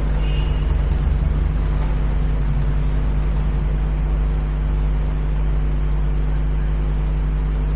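Steady low hum with a faint hiss over it.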